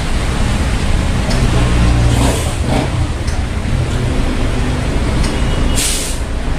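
Steady low machine rumble, like a motor or engine running, with a short hiss about six seconds in.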